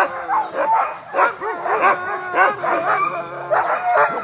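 A yard of harnessed sled dogs barking and yelping at once, with some longer wavering howls mixed in: the excited din of teams waiting at their sleds to run.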